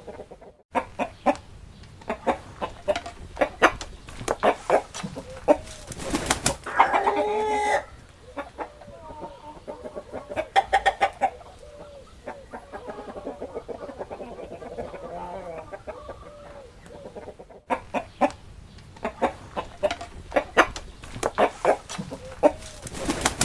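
Chickens clucking, many short sharp clucks in quick runs, with a rooster crowing once about seven seconds in.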